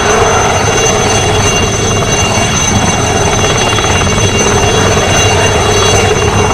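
Aérospatiale Alouette III helicopter hovering low, its turboshaft engine giving a steady high whine over the rotor noise.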